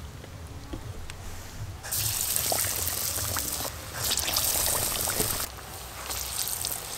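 Batter-coated potato chops dropped into a wok of hot oil: a loud sizzling hiss starts about two seconds in as one goes in, dips, and surges again about four seconds in as the next one goes in, then settles to a lower steady sizzle.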